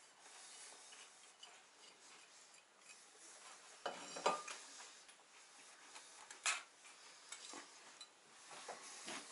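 Plates and cutlery being handled on a table: quiet scraping and shuffling with a few sharp clinks, the loudest about four seconds in and again about six and a half seconds in.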